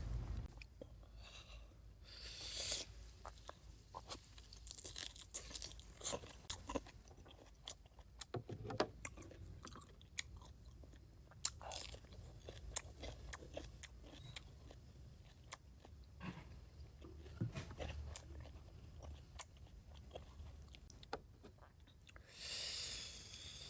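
Close-miked chewing and biting of boiled free-range chicken, with irregular small wet clicks and crunches.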